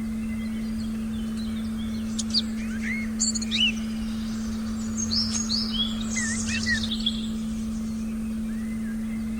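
Forest birds chirping and calling in several short rising and falling notes, thickest from about two to seven seconds in, over a steady low pure tone that holds unchanged throughout.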